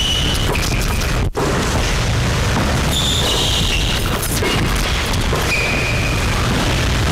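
Loud, steady low rumble, with short, high squeaks of basketball sneakers on a hardwood gym floor about half a second, three seconds and five and a half seconds in.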